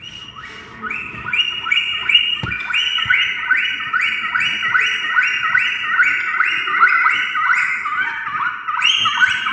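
A group of dolphins whistling: many short, overlapping whistles that sweep up and down in pitch, several a second, with a couple of brief knocks among them.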